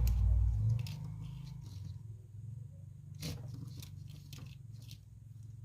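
Multimeter probes and a bridge rectifier being handled: a handful of small, separate clicks over a low steady hum that is loudest in the first second.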